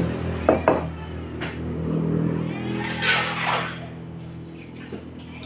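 A plate and its fork and spoon clinking as the dishes are picked up off the table: two sharp clinks about half a second in, another about a second later, then more clattering handling around three seconds in.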